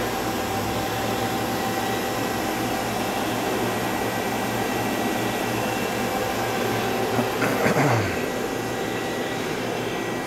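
Steady hum and fan noise of a powered-up Hwacheon Cutex 160 CNC lathe, heard with its electrical cabinet open, with a faint high whine. A brief falling whine comes about three-quarters of the way through.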